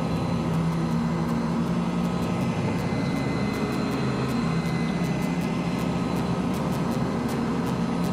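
A DEWALT 2000-watt hot air gun running steadily, its fan motor humming and blowing a rush of hot air onto a PVC pipe to soften it for bending.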